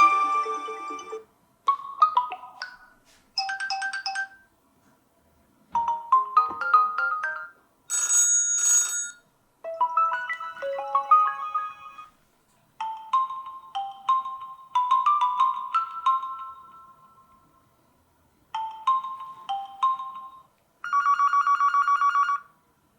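Huawei P20 Pro built-in ringtones played one after another: about nine short electronic melodies, each a second or a few long, with brief silences between them. The last is a fast, evenly repeating trill.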